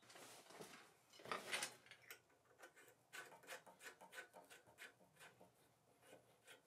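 Faint, irregular small ticks and brief soft rubbing as a hand turns the cap of a grease cup on the cast iron bandsaw's lower shaft bearing housing, forcing lithium grease into the bearing.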